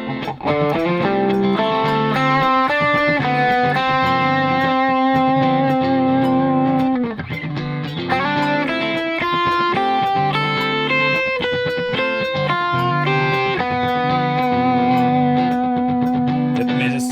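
Ibanez AZ2204 electric guitar playing an improvised D Dorian lead over a D minor 7 to G7 chord backing: runs of picked notes broken by two long held notes with vibrato. It has a light overdriven tone.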